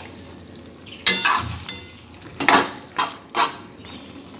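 Perforated metal skimmer spoon scraping and clinking against a metal kadai while chicken in gravy is stirred, over a low sizzle. Several separate strokes, the loudest a sharp ringing clink about a second in.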